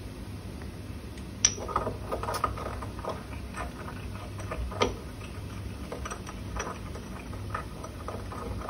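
Scattered light clicks and knocks of small objects handled on a laboratory bench, the sharpest about a second and a half in and again near the five-second mark, over a steady low hum.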